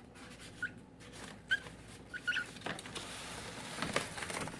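Cockatiel giving several short, high chirps, then a spell of crinkling, scuffling paper from a brown paper bag as a bird moves about in it, loudest about four seconds in.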